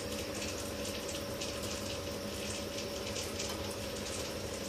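Potato and onion pakoras deep-frying in a pan of hot oil: a steady sizzle with fine crackling, over a steady low hum.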